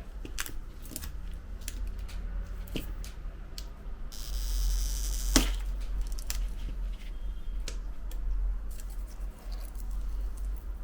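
Battery adhesive strip being pulled out from under an iPhone 11 Pro Max battery: small scattered clicks and scrapes, and a hiss of about a second and a half midway that ends in a sharp snap.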